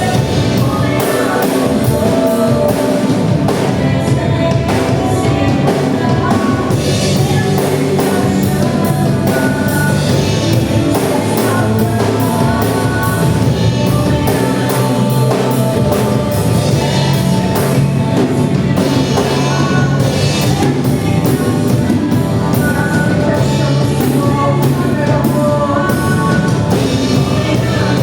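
Church worship band playing a rock-style song, with drum kit, guitar and singing.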